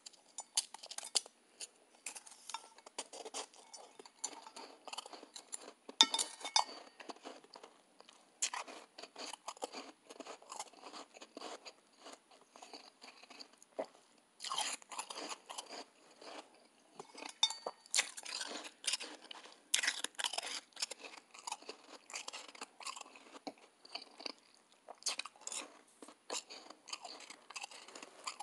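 A person chewing mouthfuls of soft, powdery white ice: dense, crackly crunching that comes in runs, with short pauses between mouthfuls.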